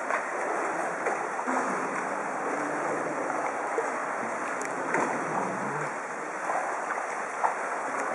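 Kayak paddles dipping into and pulling through calm water, a steady wash of water with scattered small splashes and drips as several kayaks are paddled along.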